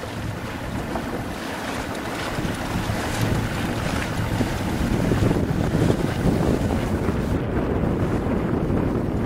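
Wind buffeting the microphone over the rush and splash of choppy water around a boat, getting somewhat louder about halfway through.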